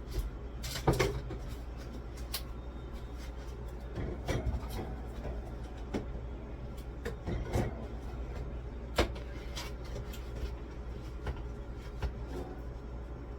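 Knocks and clunks of food items and freezer bins or drawers being moved around while a freezer is reorganised, loudest about a second in and again about nine seconds in, over a steady low hum.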